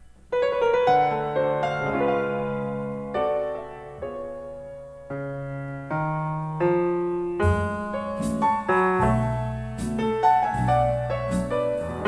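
Recorded piano music, early-1960s easy-listening style: a new piece opens just after a brief fade-out with ringing piano chords and melody. About seven seconds in, low bass notes and sharp percussion hits join the pianos.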